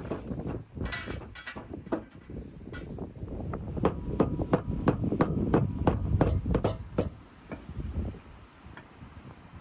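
Meat being chopped by hand with a heavy blade: a run of sharp chops, a few spaced out at first, then quickest and loudest at about three a second from around four to seven seconds in, thinning out after.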